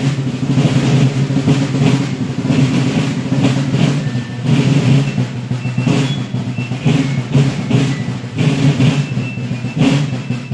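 Marching drums of a folk military march band beating, over a steady low drone.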